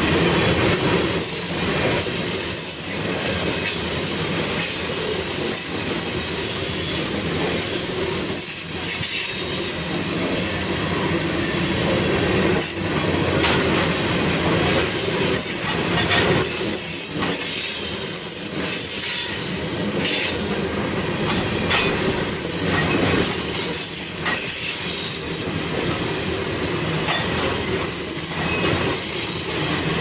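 Oil-train tank cars rolling past, their steel wheels rumbling and clattering on the rails with scattered knocks, and a high-pitched wheel squeal that comes and goes.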